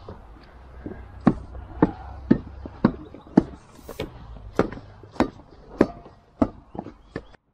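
Rubber stamp mats being tamped down onto a fresh stampable concrete overlay: a steady run of dull knocks, about two a second.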